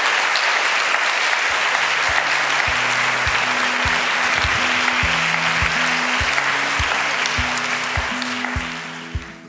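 Audience applauding steadily, dying away near the end. From about a second and a half in, music with low, sharply struck notes comes in underneath.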